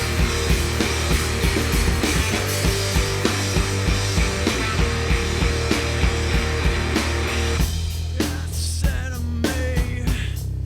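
Live rock band playing loud guitar-driven rock with drum kit and bass, from a mono radio broadcast recording. About eight seconds in, the dense wash of sound thins out into a clearer, sparser texture.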